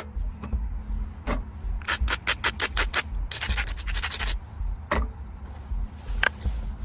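Stone biface being knapped: sharp, high, ringing clicks of tool on stone, a quick run of about eight taps, then about a second of rapid scraping, with single taps before and after.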